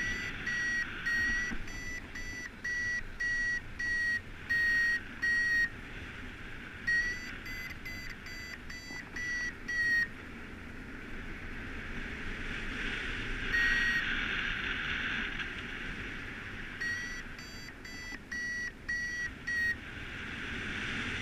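Paraglider variometer beeping its climb tone: short high beeps, about one and a half a second, in runs of several seconds with short breaks, the sign that the glider is climbing in lift. A steady rush of wind over the microphone runs underneath.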